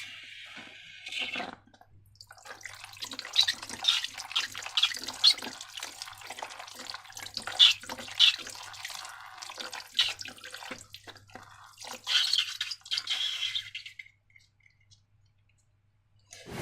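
Slime being squished and squelched, a dense run of short wet, sticky clicks and pops that stops about two seconds before the end.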